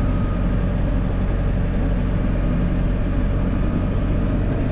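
Case IH Farmall 110C tractor's diesel engine running steadily, heard from inside the cab.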